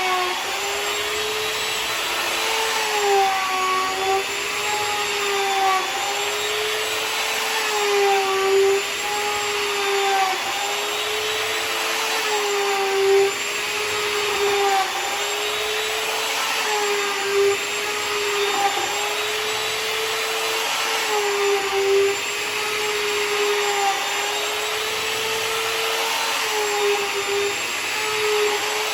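Router milling a walnut slab flat, running steadily with a high whine over a rushing hiss. The pitch dips briefly and recovers every two to three seconds as the bit takes load on each cutting pass.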